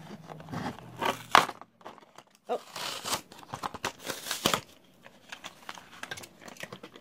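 Toy packaging being handled, crinkling and rustling in irregular bursts, with a sharp click or knock about a second and a half in.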